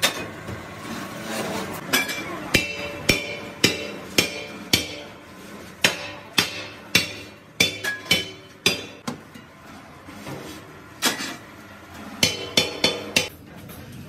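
Hand hammer striking the domed steel end cap of an air compressor tank, knocking it into the end of the rolled steel shell. A series of ringing metal blows, roughly two a second, comes in runs with a pause of about two seconds before the last few.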